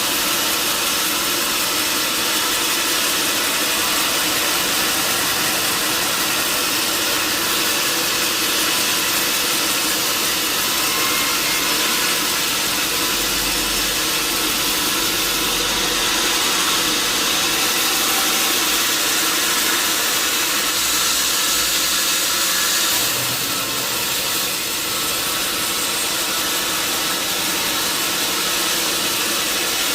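Sawmill wheel saw (band saw) running steadily, a dense hiss over a machine hum, easing off slightly about two-thirds of the way through.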